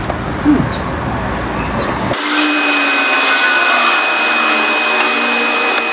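LPG pump dispensing autogas into a camper van's tank. From about two seconds in it runs as a steady hiss with a thin high whine.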